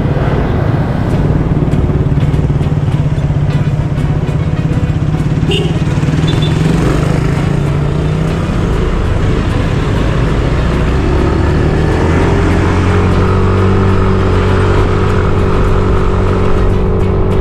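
A motor vehicle's engine running steadily, with road noise. About two-thirds of the way through its pitch rises a little and then holds steady.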